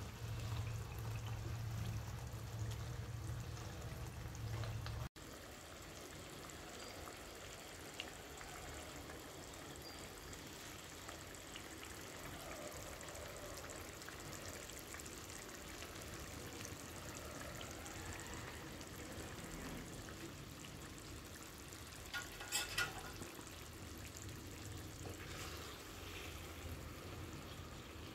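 A steady low hum that cuts off suddenly about five seconds in, then chicken curry gravy simmering in oil in a frying pan: a faint, even sizzle and bubbling. A short cluster of clicks comes about three-quarters of the way through.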